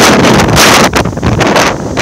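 Strong storm wind buffeting the microphone, rising to its loudest gust about half a second in.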